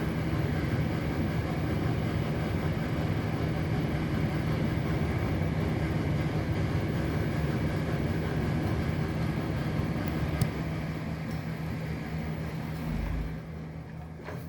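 A steady low mechanical rumble with a constant hum under it, like a large engine or machine running. There is one sharp click about ten seconds in, and the rumble dies away near the end.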